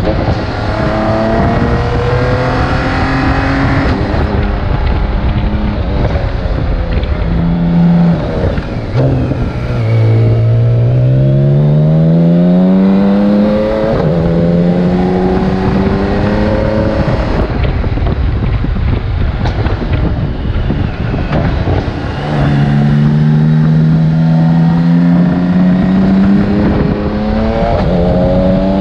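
BMW K1600GTL's inline six-cylinder engine running under way, the revs dropping about nine seconds in, then climbing steadily, holding, and climbing again near the end. Wind rumbles on the microphone underneath.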